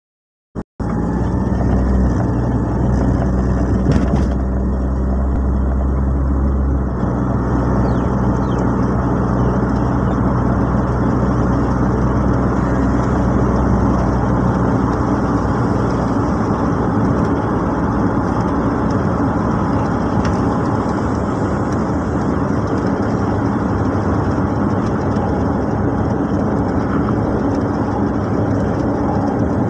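A car driving, heard from inside the cabin: a steady engine hum for the first several seconds, then even tyre and road rumble as it cruises. There is a single short click about four seconds in.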